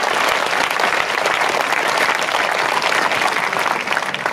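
Tennis spectators applauding a point, dense clapping from a large crowd that starts to fade near the end.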